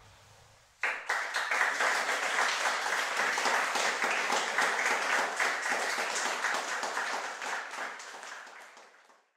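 Audience applauding, starting suddenly about a second in and fading out near the end.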